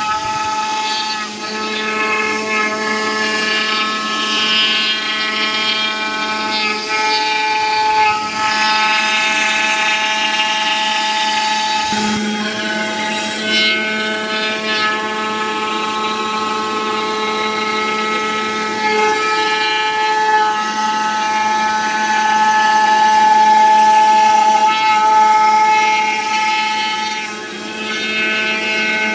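CNC foam cutting machine's milling spindle running steadily as it carves EVA foam, a continuous whine whose upper tones swell and fade as the cutter moves through the material.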